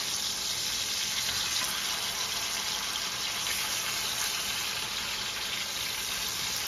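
Pork chops frying in oil in a skillet, with a steady, even sizzle as they are turned over with tongs.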